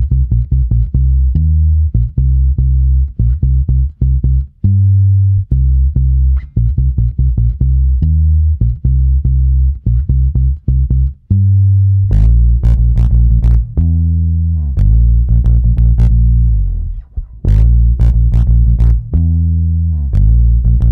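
Bass-heavy music made to make a speaker vibrate: a quick run of deep, pitched bass notes. About halfway through the notes become longer and heavier, each opening with a sharp click.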